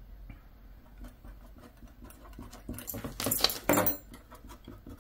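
Writing and handling at a desk: quiet pen strokes on a paper budget sheet, then, about three seconds in, a short cluster of sharp clicks and scratches, with metal bangle bracelets clinking as the hand moves.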